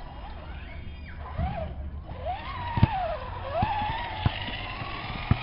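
Axial Deadbolt RC truck's electric motor whining, its pitch rising and falling several times as the throttle is worked, with a few sharp knocks.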